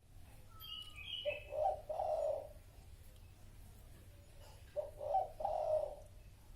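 A dove cooing: a low, two-part coo phrase about a second in, repeated a little past four seconds in. A few high bird chirps come before the first coo, over faint low background noise.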